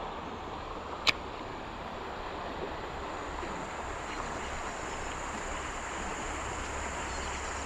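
Steady rush of fast-flowing river water, with a single sharp click about a second in.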